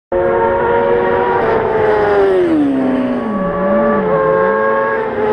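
Racing motorcycle engine at high revs, its pitch falling steadily over about two seconds, then briefly rising and dropping again before it levels off.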